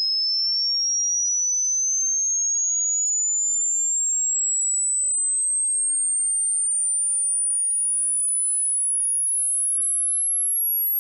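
A single high-pitched pure tone gliding slowly and steadily upward until it is very high. It is a hearing-test frequency sweep: the point where a listener stops hearing it is taken as the age of their ears, since high-pitch hearing fades with age.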